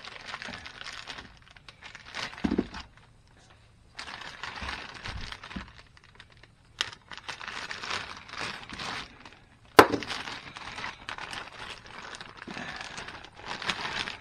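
Thin plastic bag crinkling and rustling in stretches as it is handled and cut open with a utility knife. A sharp click about ten seconds in is the loudest sound, with a smaller one about three seconds before it.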